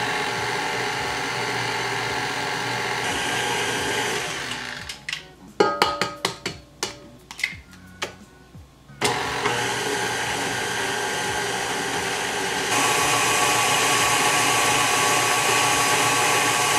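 KitchenAid Artisan tilt-head stand mixer running with its flat beater, beating egg yolks into creamed butter and sugar for cake batter. The motor stops about five seconds in, followed by a few seconds of clicks and knocks against the steel bowl. It starts again about nine seconds in and runs faster and louder from about thirteen seconds.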